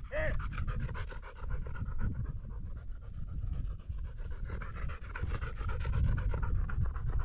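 A hunting dog panting quickly and steadily close to the microphone.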